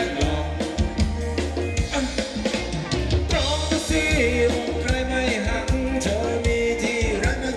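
Live band playing Thai ramwong dance music: a drum kit keeping a steady beat under bass and a wavering melody line.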